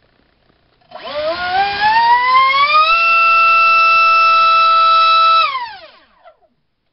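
2948-size 4800kv brushless in-runner motor driving a 4.1x4.1 propeller on a thrust test stand, off a 3S battery: a loud whine that rises in pitch over about two seconds, holds steady for about two and a half seconds, then falls away as the motor spins down.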